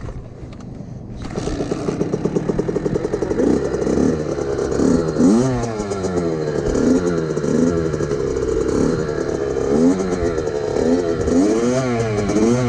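Small dirt bike engine kick-started, catching about a second in, then revved up and down in repeated uneven blips instead of held at steady revs, as a learner rider works the throttle.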